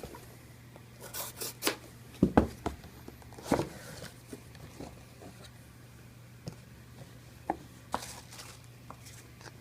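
Sample subscription box being opened and its packaging handled: scattered rustles, scrapes and taps, busiest in the first few seconds and again near the end.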